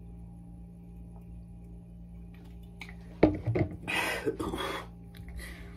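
A man coming off a long chug of fridge-cold carbonated water from a boot glass: a steady low hum, then about three seconds in a sudden loud thump and a short voiced gasp, followed by several heavy, panting breaths.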